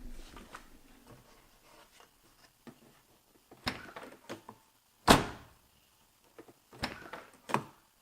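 Toyota AE86 door handle and latch being worked by hand: a few short, sharp clicks and clunks as the latch releases and catches, the loudest about five seconds in.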